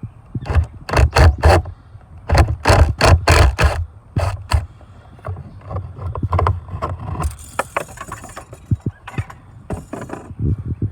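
Sharp knocks and clacks of hard plastic engine-bay parts being handled, in quick runs of three and five, then lighter clicks and scraping.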